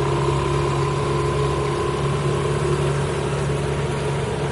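Mercury outboard motor running steadily, driving a small boat along at speed, with a steady hiss of water and wind over its hum.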